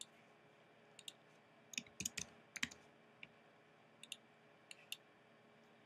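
Faint computer keyboard keystrokes and mouse clicks, about a dozen short, separate clicks with a small cluster of quick keystrokes about two seconds in.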